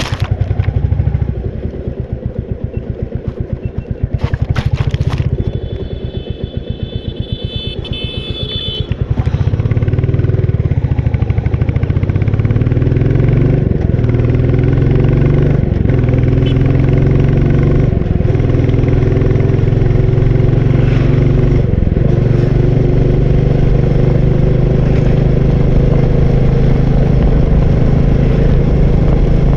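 Royal Enfield Bullet 350's single-cylinder engine under way at low revs at first. About nine seconds in it pulls harder, rising in pitch through several gear changes, each a brief dip, then settles into a steady cruise. A short high-pitched tone sounds about a third of the way in.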